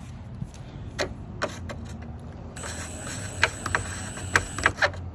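Cordless drill running for about two seconds in the middle, driving a self-tapping screw into a carbon fiber bumper lip, with sharp clicks and knocks before and during it.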